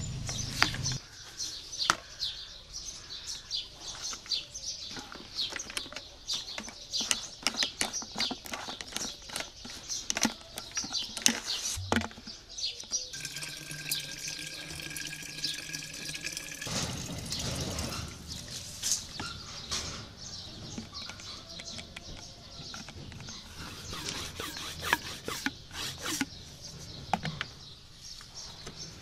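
Water running from a hose through a plastic funnel into the plastic tank of a 5-litre hand-pump garden pressure sprayer, splashing and trickling as the tank fills.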